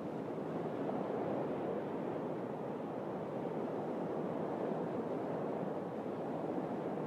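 Sea surf at night: a steady, even wash of waves with no distinct breaks.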